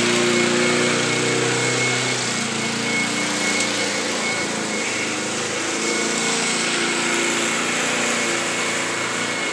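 Gasoline walk-behind lawn mower engine running steadily while mowing grass, its pitch wavering slightly.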